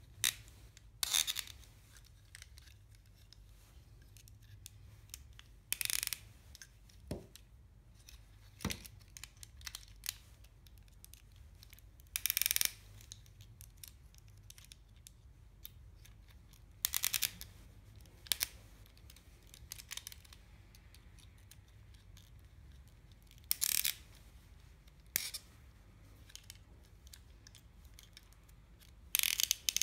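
A small screwdriver driving screws through plastic robot-arm parts while the pieces are handled: about a dozen brief scratchy scrapes at irregular gaps.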